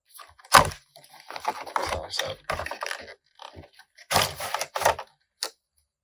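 Action-figure packaging of cardboard and plastic being handled and torn open: irregular crackling and ripping, with a sharp rip about half a second in and a longer burst around four seconds in.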